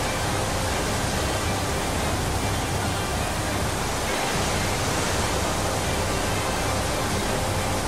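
Dam spillway discharging floodwater: a steady, even roar of rushing white water and spray. The low rumble dips briefly about four seconds in.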